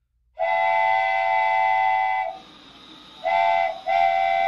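Train's multi-tone air horn sounding: one long blast, then a short blast and another longer one.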